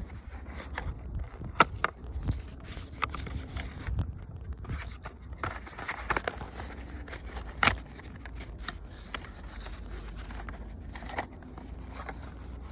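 Cardboard box of a toy airsoft pistol being handled and opened: scattered taps, clicks and scrapes of cardboard, two sharper knocks about a second and a half and seven and a half seconds in. A low steady rumble of wind on the microphone sits beneath.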